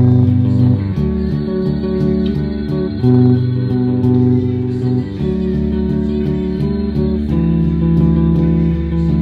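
Bass guitar strummed in chords, ringing notes with chord changes every second or two.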